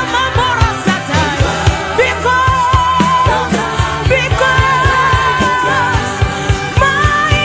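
Gospel worship music: a lead vocalist singing long, sustained melodic lines over a band with a steady drum and bass beat.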